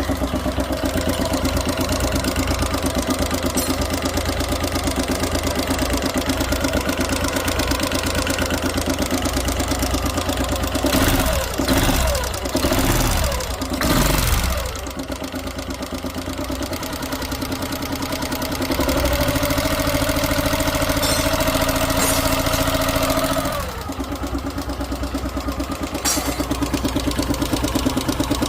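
Suzuki engine idling just after starting. It is revved several times in quick succession about 11 to 15 seconds in, held at a higher speed from about 19 to 23 seconds, then drops back to idle. The engine is being run to show a sound problem.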